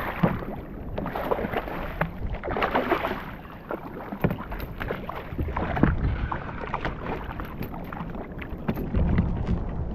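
Water splashing and sloshing around a kayak, with scattered sharp knocks and clicks from handling on board, and wind buffeting the microphone now and then.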